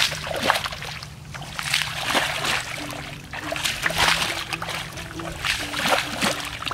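Bare feet splashing through shallow muddy water, a wet slap with each step, about two steps a second.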